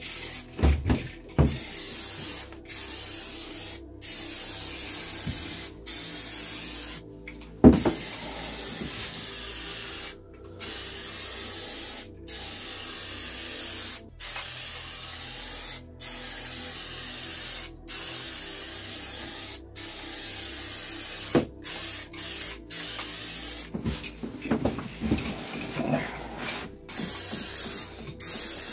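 Paint being sprayed in repeated passes of about two seconds each, a steady hiss broken by short pauses between passes. A sharp knock about eight seconds in is the loudest sound, with a few smaller knocks near the start and some clatter near the end.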